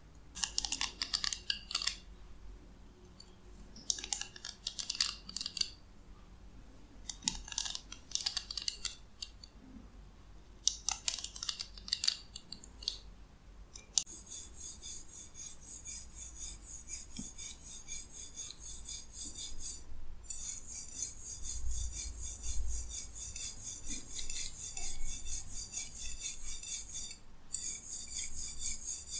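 Fingertips strumming the ball-tipped plastic bristles of a hairbrush: four short bursts of crisp clicking in the first half, then from about halfway a continuous fast, rhythmic scratching as the bristles are rubbed, broken twice by brief pauses.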